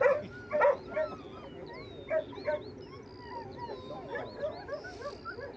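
A dog yelping, about five short, sharp calls in the first two and a half seconds. Small birds keep up quick chirping throughout.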